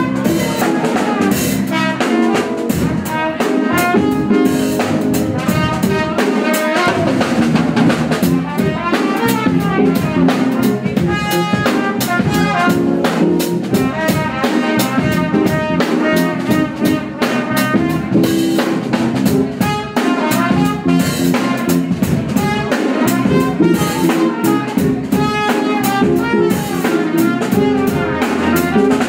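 Live jazz from a small band: a trumpet playing the lead over a drum kit keeping time with snare and cymbal strikes.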